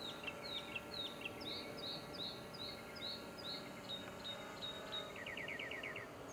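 Birds chirping: a string of short downslurred chirps, about three a second, then a fast trill of about ten quick notes near the end.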